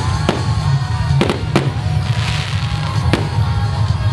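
Aerial fireworks bursting overhead: about five sharp bangs, two close together at the start, two more just past the first second and one near the end, over loud music playing throughout.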